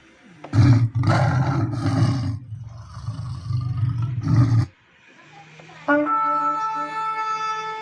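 Yamaha keyboard playing sound-effect samples: a loud animal-like roar for about four seconds. About six seconds in comes a long, steady, horn-like held note, the keyboard's shofar sound.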